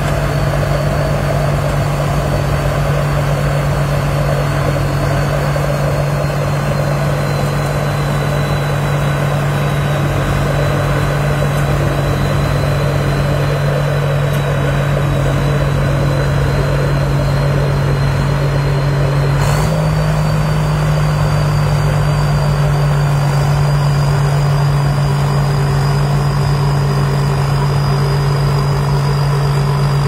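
Rice combine harvester running steadily as it cuts standing rice, its engine a steady drone with a thin high whine above it. About two-thirds of the way through there is a click and the engine note steps up slightly.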